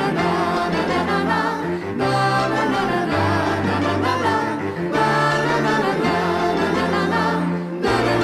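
A song with layered, choir-like singing over sustained bass notes that change about every two seconds.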